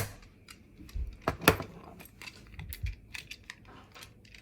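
Scattered light taps and clicks of a pencil on paper and a tabletop as a child writes.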